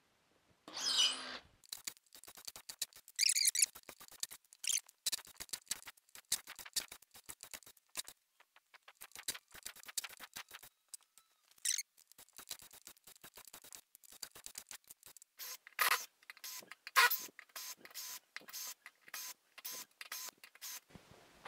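Hilti SID 6-22 cordless impact driver backing 2-inch screws out of a wooden post: a quick, irregular run of short clicks with several louder bursts.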